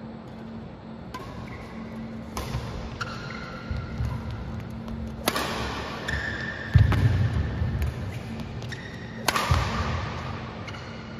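Badminton rally: about four sharp racket-on-shuttlecock hits at uneven intervals, mixed with heavy thuds of players' footsteps and lunges on the court floor, the loudest thud about seven seconds in. Short squeaks follow some hits, over a steady low hum.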